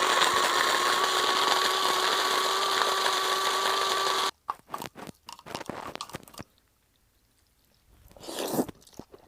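A small motor runs steadily for about four seconds with a steady whine, then cuts off abruptly; a few light clicks and knocks follow, with a brief rustle near the end.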